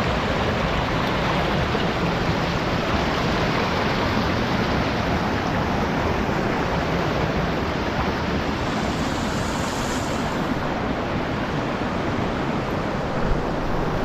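Stream water rushing steadily over rocks, an even roar with no breaks.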